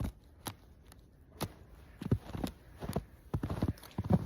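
Footsteps on ice, irregular sharp steps, coming quicker near the end.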